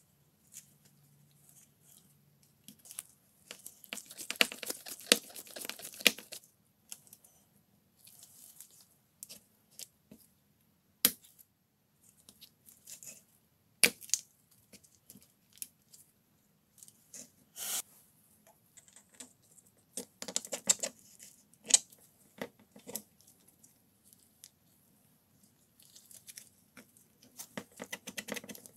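Gloved hands rubbing and scraping against a power drill's plastic housing in short irregular bursts, with a few sharp single clicks of parts knocking together.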